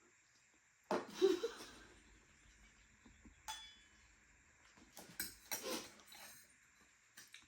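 Eating sounds at a meal: a short burst of voice about a second in, then scattered soft clicks of dishes and utensils and chewing noises.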